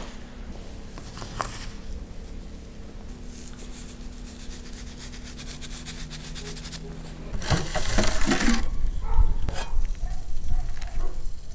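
Quiet hand sounds of a lemon being squeezed and sumac being rubbed between fingers over sliced onions, a faint fine crackle. About seven seconds in, a much louder rush of noise follows, then scattered knocks, as a gloved hand works at the metal grate inside a tandoor.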